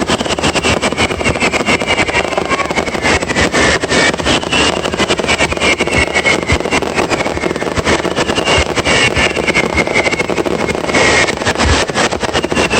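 Fireworks going off in a dense, continuous run of rapid crackles and pops, with a wavering high whistle over them.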